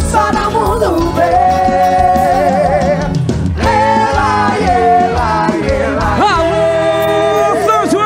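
Music with singing: long held notes with a wavering pitch over a steady band accompaniment, with a brief break about three and a half seconds in.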